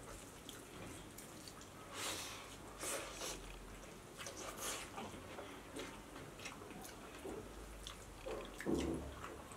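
Close-miked hand-eating of egg biryani: wet chewing and lip smacks, with fingers squishing rice and curry on steel plates, in irregular small clicks and squelches. A louder low burst comes near the end.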